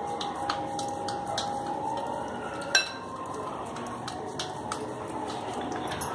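Light clinks of bangles on the wrists, and of a hand against the glass bowl, as hands roll minced meat into kofta balls. The clinks come every half second or so, the loudest one almost three seconds in, over a faint steady hum.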